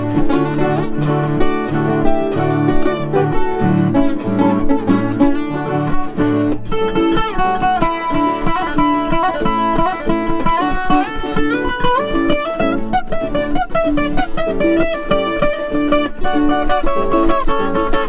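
Instrumental duet of a ten-string viola caipira and a smaller plucked string instrument, played with quick picked notes over a repeated bass. About seven seconds in, the melody moves higher and becomes busier.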